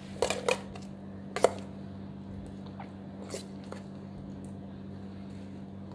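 Spoon mixing chopped vegetables in a stainless steel bowl: a few scattered metal clinks and knocks, the loudest about one and a half seconds in, over a steady low hum.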